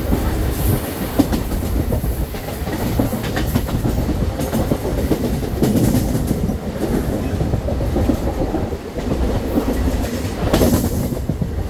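Mumbai suburban local train running, its wheels clattering over the rail joints over a steady low rumble, with scattered rattles and clicks.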